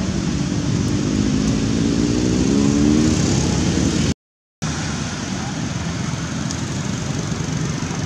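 Steady outdoor background noise with a motor engine humming, its pitch rising slightly between about one and three seconds in. The sound cuts out completely for about half a second just after four seconds in.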